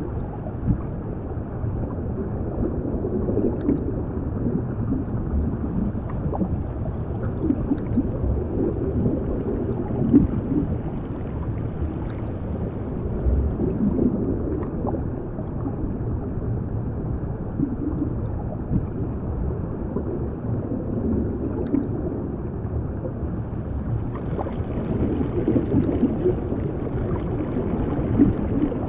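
Muffled underwater sound: a steady low rumble with irregular gurgling swells of water and bubbles, and a few faint clicks.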